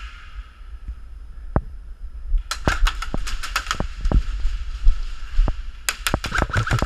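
Airsoft guns firing: a run of sharp shots about two and a half seconds in, then a second quick burst near the end, over a steady low rumble of wind or handling on the microphone.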